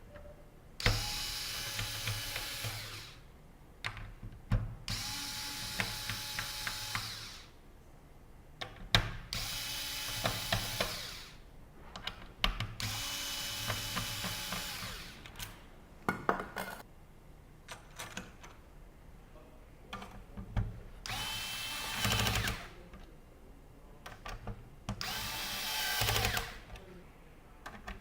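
Electric screwdriver driving screws in short runs of one to two and a half seconds each, about seven times, with small clicks of handling between runs.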